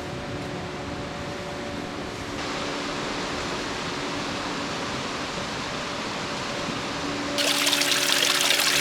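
Nachi Falls, a tall plunge waterfall, giving a steady rush of falling water. It grows louder about two and a half seconds in, and louder and hissier again near the end.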